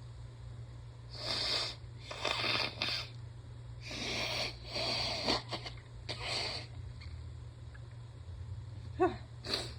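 A woman sniffling and breathing hard through her nose in the middle of a sneezing fit: five rushing breaths in about six seconds, then a short voiced sound and a quick sniff near the end.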